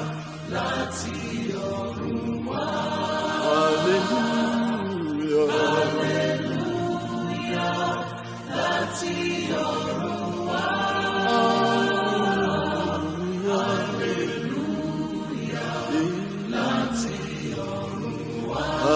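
Church choir singing with long, held notes.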